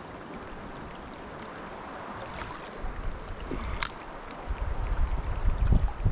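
Steady rush of flowing river water, with a single sharp click a little before the four-second mark and low rumbling close to the microphone over the last second and a half.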